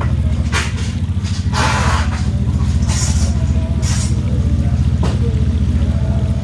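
An engine idling with a steady low hum that pulses fast. Short bursts of noise come over it about once a second.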